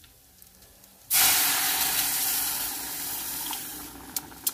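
Water poured into a hot butter-and-flour roux in a saucepan: a sudden loud hiss starts about a second in and slowly fades.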